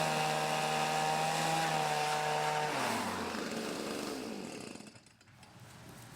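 Hitachi RB24EAP two-stroke gas leaf blower running steadily at high throttle, blowing dust out of a vacuum cleaner filter. Just under three seconds in, its pitch falls away and the engine winds down and dies out within about two seconds.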